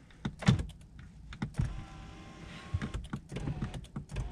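Repeated clicks of a Mercedes C300's door-mounted power-seat switch being pressed, with the electric seat motor whining faintly from a little before halfway.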